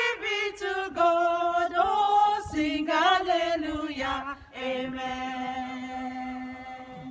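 Three women singing a hymn unaccompanied, in harmony, then holding a final chord from about four and a half seconds in that fades away at the end.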